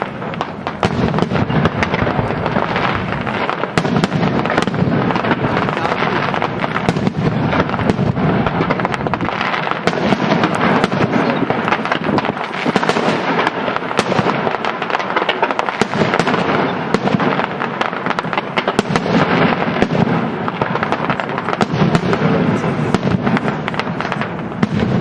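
Fireworks going off in a dense, unbroken barrage: many rapid bangs and crackles overlapping with no pause.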